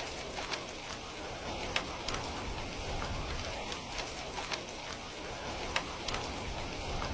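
Heavy rain falling steadily, an even hiss with scattered sharp ticks of single drops.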